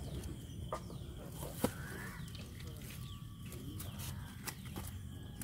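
Faint bird calls over scattered light clicks and rustles from an orange nylon net full of fish being lifted and shaken. The sharpest click comes about one and a half seconds in.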